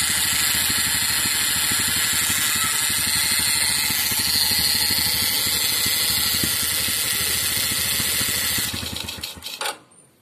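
Homemade ignition-coil electric fish stunner running off a battery: a loud, harsh, steady buzz. It dies away and stops about nine and a half seconds in, as a lead comes off the battery.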